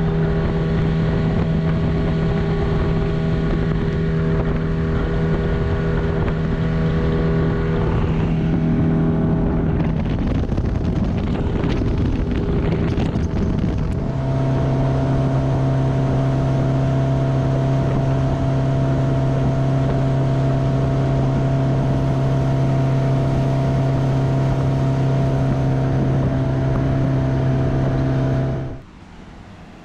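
Glastron speedboat's engine running at speed, a steady drone with wind on the microphone. About a third of the way in there are a few seconds of knocks and rustling. Near the halfway point the drone drops to a lower pitch. Near the end the sound cuts off suddenly.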